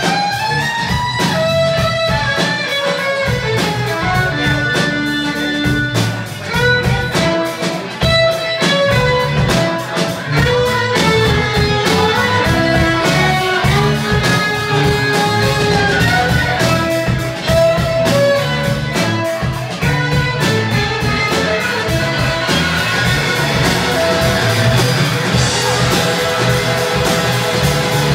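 Live band music: a fiddle plays a gliding lead melody over strummed acoustic guitar, bass guitar and drum kit, at a steady loud level.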